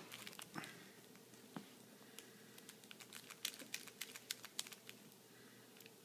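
Faint, quick, irregular clicks and taps from a plush baby toy with hard plastic rings being shaken in front of a puppy and bitten at, thickest in the middle of the stretch.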